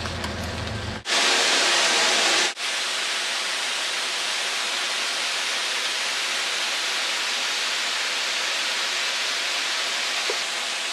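Waterfall: a steady, even rush of falling water. A low rumble sits under the noise for the first second, a louder stretch of rush cuts off abruptly about two and a half seconds in, and the rush then runs on evenly.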